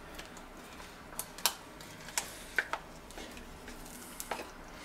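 A wooden-handled spoon scraping and tapping against a plastic tub as lumps of clarified butter are scooped out and dropped into a cast-iron pan: a series of light, irregular clicks and taps.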